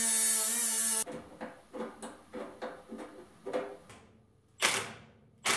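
Cordless right-angle die grinder cutting metal with a steady high whine, grinding fastener ends flush, stops abruptly about a second in. A run of lighter metallic knocks follows, then two short, sharp bursts near the end from a cordless impact driver drawing a fastener up tight.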